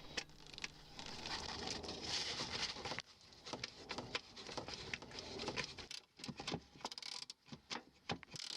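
Scraping and irregular light clicks of a hand tool working the two 7mm head screws that hold a turn signal housing, rustling for the first few seconds, then scattered ticks.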